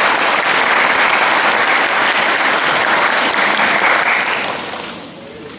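An audience clapping steadily, then dying away near the end.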